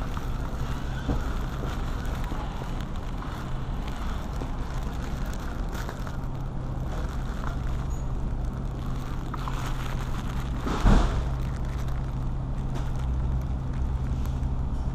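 Steady low hum of an open refrigerated display case in a store, with light handling rustle and one sharp thump about eleven seconds in.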